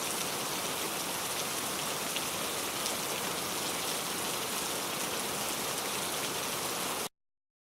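Heavy rain falling steadily on a surface, a dense even hiss with scattered drop ticks, cutting off abruptly about seven seconds in.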